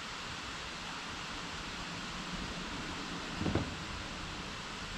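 Steady background hiss, with one brief soft bump about three and a half seconds in as the Allen wrench and hand work against the plastic kayak hull while tightening a light mount.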